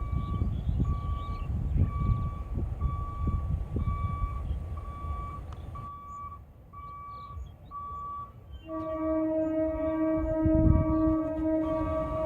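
EMU local train horn sounding a long, steady blast from about two-thirds of the way in, after a low rumble early on. An electronic warning beep repeats a little more than once a second throughout.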